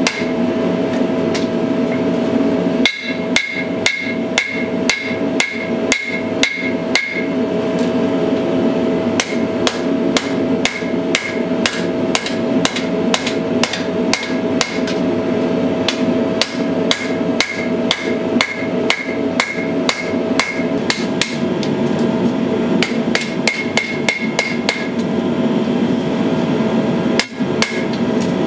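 Hand hammer striking a red-hot steel gladius blade on an anvil as it is forged: a steady run of blows, about two to three a second, many with a short metallic ring.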